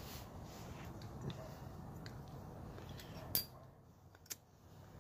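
Flip-top lighter being handled to relight a smoke: a soft tap about a second in, then two sharp metallic clicks about a second apart near the end.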